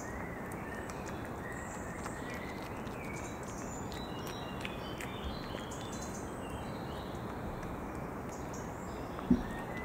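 Steady wind noise rushing over a high-gain external microphone, with faint bird chirps and small crunching clicks from a European badger cub eating peanuts. A short low thump near the end.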